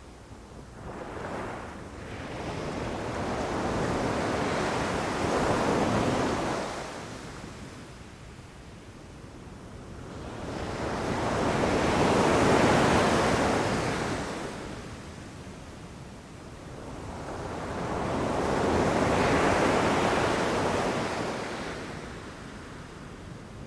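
Ocean waves breaking on a beach. Three waves swell up and wash away about seven seconds apart, the middle one the loudest.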